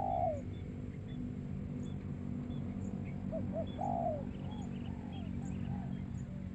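A young captive dove cooing: two short notes then a longer rolling coo, heard at the start and again about three and a half seconds in, followed by softer coos. These are its first coos ('batuk'), the sign that its training has started to take. Faint chirps of small birds and a steady low hum lie behind.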